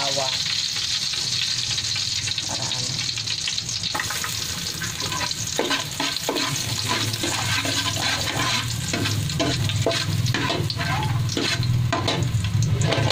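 Ginger frying in a little hot oil in a large aluminium pot, a steady sizzle, with a metal spatula scraping and stirring against the pot bottom. The scrapes come thick and fast from about five seconds in, over a low steady hum.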